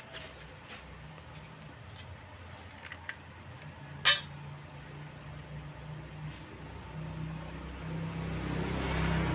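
Small metal nuts clinking as they are handled at the crankcase's steel cylinder studs: a few faint clicks and one sharp, ringing clink about four seconds in. Near the end a motor vehicle's engine grows steadily louder.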